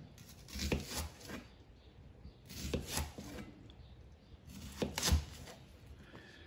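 A kitchen knife slicing an onion into thin rings on a plastic cutting board, the blade tapping the board with each cut. Three short runs of a few strokes each, about two seconds apart.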